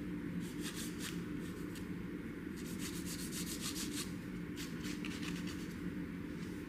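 Fingernails being filed with a nail file: short runs of quick rasping strokes, the longest run in the middle, over a steady low hum.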